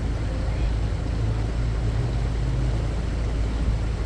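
A boat's engine running steadily under way, a low hum with water noise along the hull.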